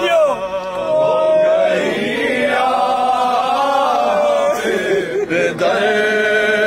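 A man chanting a soz, a mournful Urdu elegy, unaccompanied, holding long notes that waver in pitch.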